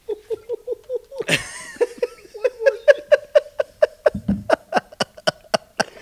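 Men laughing hard after a joke: a long run of rapid, rhythmic 'ha-ha' pulses, with a sharp louder outburst a little over a second in.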